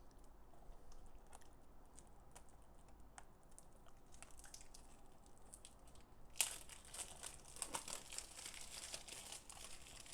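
Plastic shrink-wrap on a DVD case being picked at and torn by hand: faint scattered clicks and crinkles at first, then from about six seconds in a louder stretch of crackling and tearing as the wrap gives.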